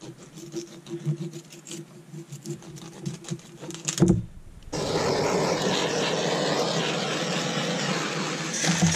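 Goose feathers being plucked by hand, making faint irregular rips and rubbing, then a sharp knock about four seconds in. Just under a second later the steady hiss of a handheld propane torch begins as it singes the plucked goose carcasses.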